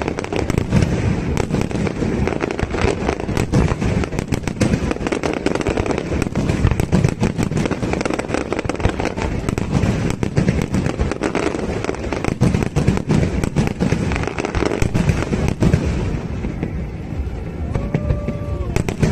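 Aerial fireworks barrage: a dense, rapid run of bangs and crackling, many reports a second, easing off near the end.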